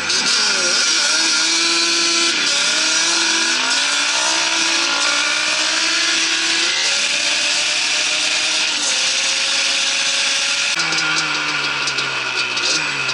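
Sport quad's engine pulling hard through the gears: its pitch climbs and drops back at each of about four upshifts, over a steady rush of wind and engine noise. Near the end it settles to a lower, steadier note.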